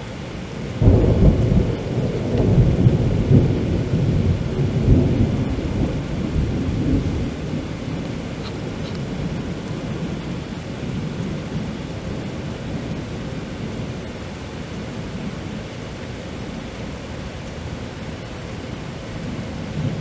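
A loud clap of thunder breaks about a second in and rumbles for several seconds before fading, over a steady hiss of rain.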